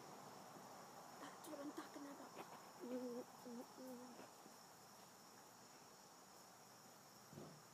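Faint, steady high-pitched chirring of insects in the background. About a second and a half in, a person's voice calls out a few short times, then stops around four seconds in.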